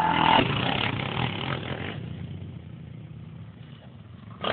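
Quad (ATV) engine running, loud for the first two seconds and then dropping away to a quieter drone, growing loud again at the very end.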